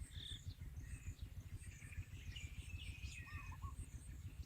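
Several small songbirds chirping and warbling in short repeated calls, over a steady low rumble.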